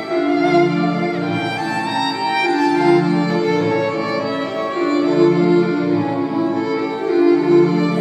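Live violin music: bowed notes held over a low phrase that repeats about every two seconds, building into several layers.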